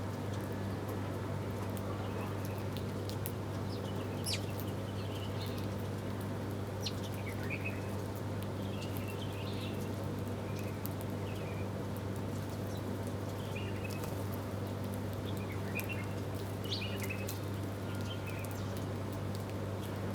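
Small birds giving short, scattered chirps every second or two, over a steady low hum.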